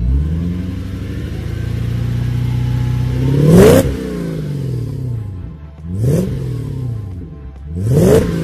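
Toyota Soarer's 4.0-litre V8 engine revved with the car standing still: held at raised revs for a few seconds, then blipped sharply three times, each rev rising quickly and falling back, the first blip the loudest.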